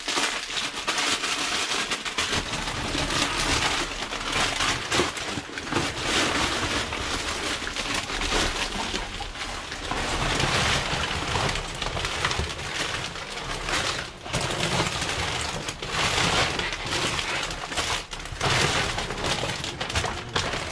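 Plastic trash bags and packaging crinkling and rustling steadily as someone rummages through the contents of a dumpster, with many small crackles and snaps.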